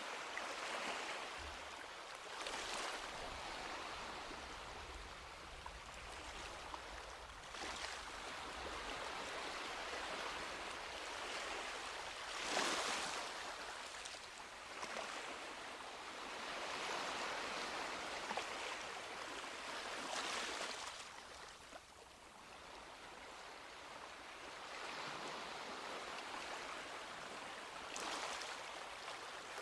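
Small waves washing onto a beach, a steady wash of surf that swells with each breaking wave every few seconds, the strongest wave about halfway through.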